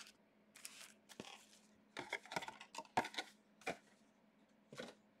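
Faint, scattered rustles and light taps of trading cards and pack wrappers being handled, a string of short sounds with small gaps between them.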